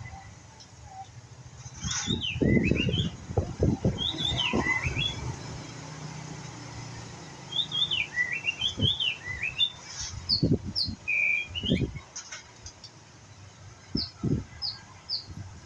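A juvenile white-rumped shama practising its song: scattered phrases of short, rising chirps and whistled notes, with pauses between them. Several dull thumps sound under the song, the loudest coming a few seconds in and again near the middle.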